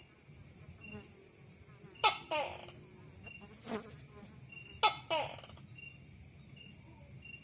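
An animal calling three times, a few seconds apart: each call is a sharp note followed by a quick rattling run of pulses. Faint short high chirps, like crickets, repeat underneath.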